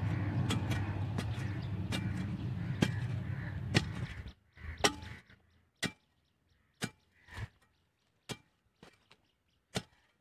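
Short-handled metal digging tool striking and scraping into dry, hard soil, with sharp chops about once or twice a second. A steady low hum runs under the strikes and stops about four seconds in.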